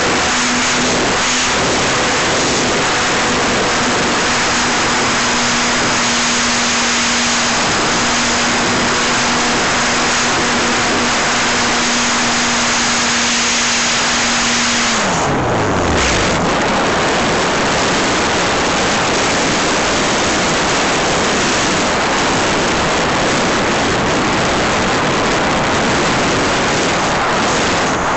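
Loud rush of airflow over the microphone in flight, with the aircraft's motor holding a steady hum. About halfway through the motor's pitch falls quickly and it stops as the motor is cut, leaving only the wind rush.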